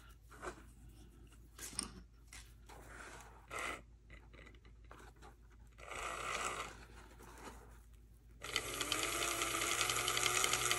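An HO scale model steam locomotive's small electric motor and gears start running about eight and a half seconds in, after a few faint clicks, and keep going as a steady whirr with a high whine. The gearing sounds a little dry.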